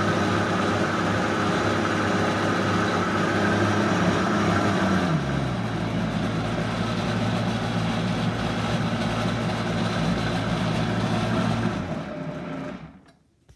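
Vitamix blender motor running steadily at high speed while blending a kale smoothie. About five seconds in its pitch drops a step and then holds. Near the end it is switched off and winds down.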